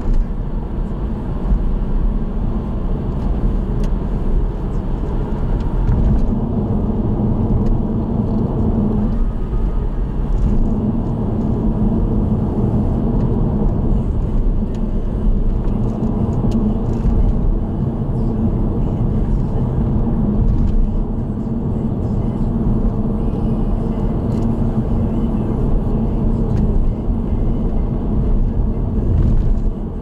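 Car being driven: steady low road and engine noise heard from inside the moving car, with tyre rumble filling the low end.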